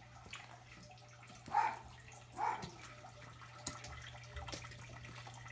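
Two splashing steps, about a second apart, through shallow water an inch or two deep on a flooded basement floor, over a steady low hum.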